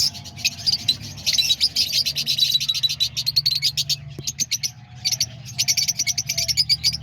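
A flock of lovebirds chattering in rapid, high chirps, in two spells: the first about four seconds long, the second starting about five and a half seconds in. A steady low hum runs underneath.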